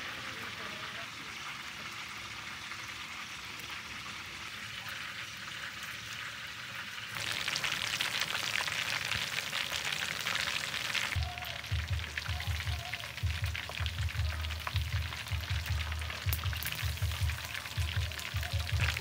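Chicken pieces deep-frying in a wok of hot oil: a dense crackling sizzle that comes in loud about seven seconds in, after a softer hiss, and carries on under a low pulsing beat that joins about eleven seconds in.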